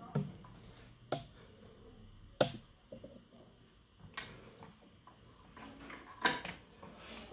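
A USB cable and power bank being handled: about five separate sharp plastic clicks and knocks, the loudest about six seconds in.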